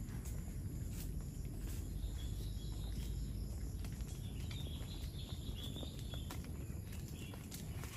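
Hooves of a herd of cattle walking on a hard road: irregular clicks and scuffs over a low rumble. A faint high chirping of a bird or insect comes in and out in the middle.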